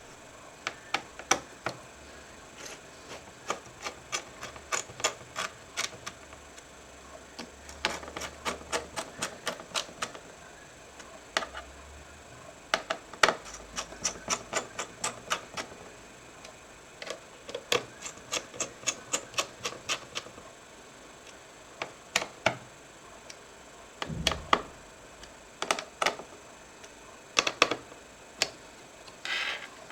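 Runs of sharp, quick clicks and ticks from small hard parts of an HP ProBook 4520s laptop being handled and worked on, with pauses between runs and a few louder knocks near the end.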